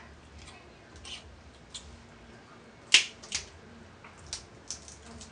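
Snow crab leg shells being cracked and snapped apart by hand: a string of sharp cracks, the loudest about three seconds in with another just after it, then a few smaller snaps.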